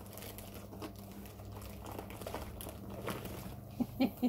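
Plastic wrapping crinkling and rustling as hands rummage through a package of wax melts and pull out a bagged wax brick, with two louder rustles near the end.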